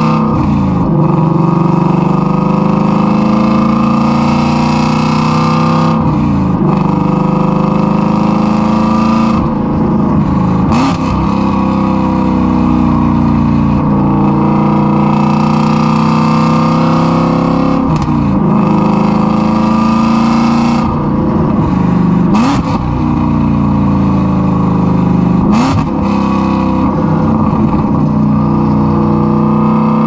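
Ford Mustang Shelby GT350's 5.2-litre flat-plane-crank V8 running loud through a straight-piped exhaust with long-tube headers, heard close at the tailpipe while driving. The engine note rises and falls under throttle, with a quick dip and recovery in pitch every few seconds.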